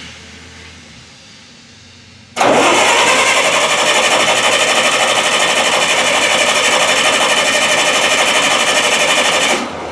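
Starter cranking the Bobcat 610 skid steer's Wisconsin gas engine for about seven seconds with an even pulsing, without the engine catching, then cutting off suddenly. The engine won't fire, which the owner suspects is a spark or carburettor problem, or flooding.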